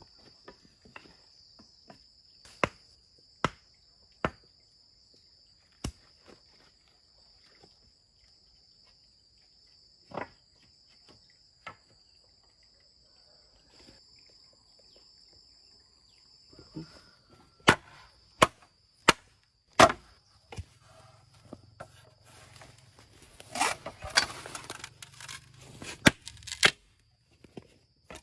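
Insects trilling steadily in one unbroken high tone, fading out near the end. Over it come scattered sharp knocks, a quick run of louder knocks about two thirds in, and a busier patch of knocking and scraping near the end.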